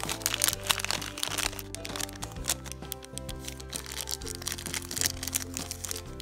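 Background music with held notes and a steady bass line, over the crinkling and crackling of a blind-bag wrapper being pulled open by hand. The crinkling is busiest in the first couple of seconds.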